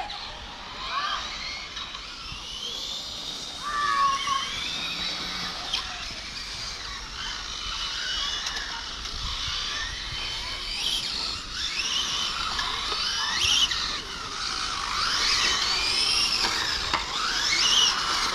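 Several 1/8-scale electric GT RC race cars with brushless motors running laps together, their high motor whines rising and falling over one another as they accelerate and brake.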